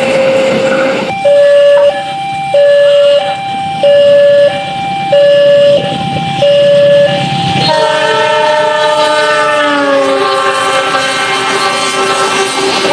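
A passing train's ride noise, with an electronic two-tone warning alarm alternating high and low tones about every two-thirds of a second, typical of an Indonesian level crossing. It is followed by a sustained multi-note horn chord that slides down in pitch and then holds, as it does when a horn sweeps past.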